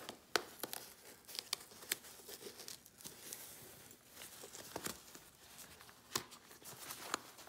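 A nylon trail gaiter being fitted to a hiking shoe by hand: faint fabric rustling with scattered sharp clicks as the lace loop and front hook are worked into place.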